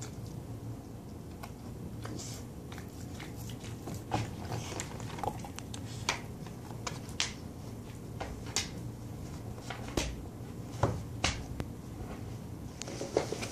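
Pit bull chewing and licking at a red rubber Kong toy stuffed with peanut butter: irregular wet smacks and sharp clicks, some louder than others.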